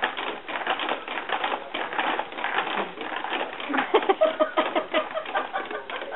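Freestanding baby jumper clicking and rattling rapidly as a baby bounces in it, its springs, frame joints and tray toys knocking in quick succession.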